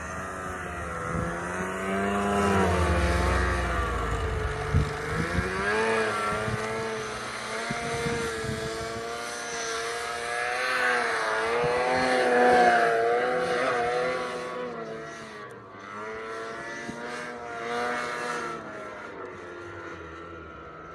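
Snowmobile engine working hard under load as it climbs a steep slope in deep snow, its pitch rising and falling with the throttle. The sound fades after about two-thirds of the way through as the sled moves off up the hill.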